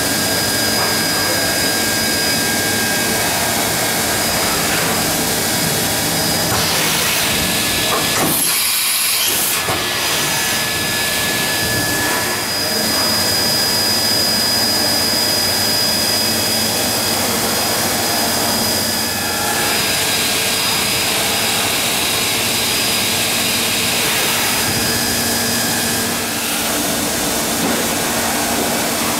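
Daewoo Ace V400 vertical CNC machining centre running a test program: a steady mechanical hiss with high whining tones from the machine's spindle and drives.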